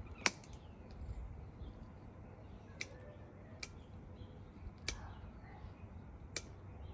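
Hand pruning shears snipping through succulent stems: five short, sharp snips at uneven intervals.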